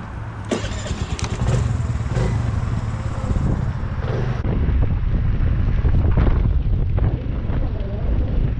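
Honda Navi's small single-cylinder engine running, getting louder over the first couple of seconds, with a few sharp clicks near the start.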